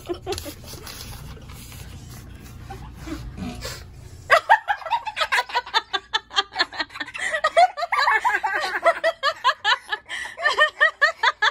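Giggling: rapid, loud bursts of laughter that break out about four seconds in and carry on, following a few seconds of low rumbling handling noise.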